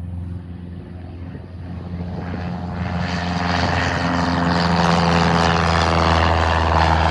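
Light propeller plane's engine at full power during a go-around, growing louder over the first few seconds as it climbs out, then holding a steady loud drone.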